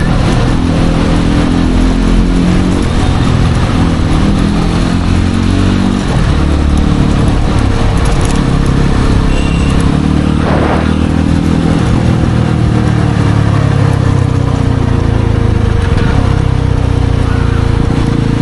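Yezdi Roadster's single-cylinder engine heard while riding in slow city traffic, its note rising and falling as it pulls away and shifts gears, with wind and road noise. The stock exhaust still has its DB killers fitted.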